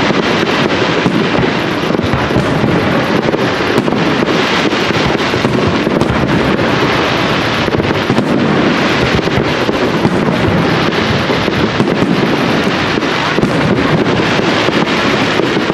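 Professional aerial fireworks: shells bursting one after another, many sharp bangs and crackles over a continuous rumble.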